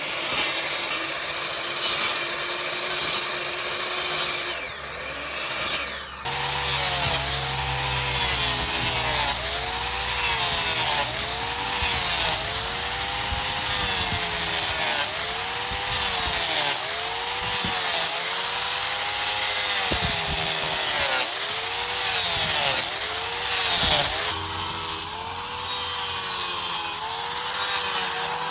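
Angle grinder working wood. About six seconds in the sound changes abruptly, and from then on the motor's pitch rises and falls in a steady rhythm of about one swell every second and a quarter as the disc is worked against the wood in repeated passes.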